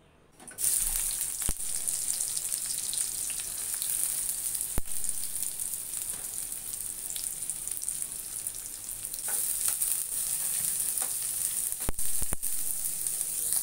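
Sliced onions and green chillies sizzling in hot oil in a pan, starting about half a second in, with a few sharp knocks and scrapes of a spatula against the pan as they are stirred.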